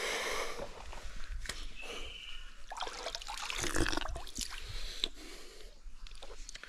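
Water splashing and dripping in irregular small splashes as a cupped hand scoops it from a rock pool to drink, loudest a little before the middle.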